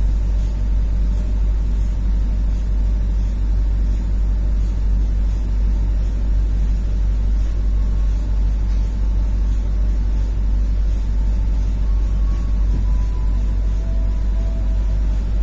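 Steady low rumble of the KA Prameks commuter train running, heard from inside the carriage, with a faint squeal in the last few seconds as it draws into a station.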